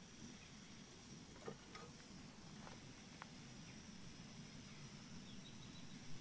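Near silence: a faint steady hum with a few light clicks and taps as a frying pan and camping stove are handled.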